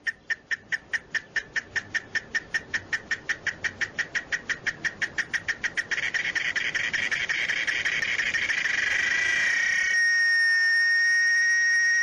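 Male cicada singing. It starts with rapid, regular clicking pulses, about seven a second, which merge into a continuous buzz about six seconds in. From about ten seconds in this settles into a steady, high-pitched whine.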